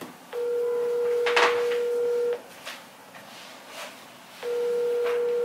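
Outgoing phone call ringing on a smartphone's speaker: a steady ringback tone, about two seconds on and two seconds off, with a second ring starting near the end while the call waits to be answered.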